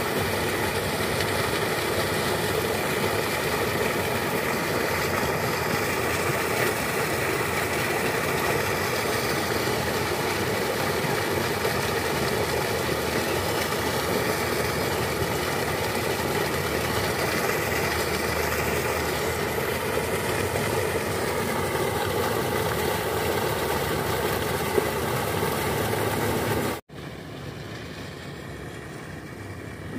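Sand-and-water slurry gushing steadily from a sand pump's discharge pipe and pouring into muddy water, heard together with a steady engine drone. The sound stops suddenly near the end, leaving a much quieter background hum.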